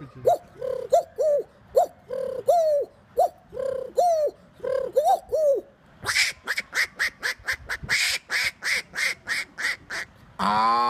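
A man imitating animal calls with his voice: a run of short, arched, bird-like calls, about two a second, then from about six seconds in a quick train of clicks, and near the end a loud, drawn-out call begins.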